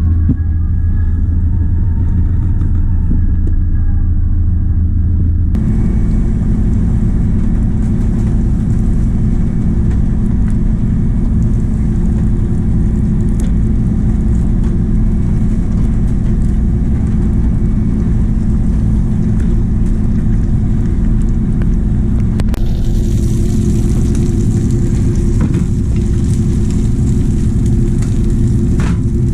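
Fishing boat's engine running steadily, a loud low drone with a steady hum. Its character changes abruptly about five seconds in and again near the end, with more hiss in the last part.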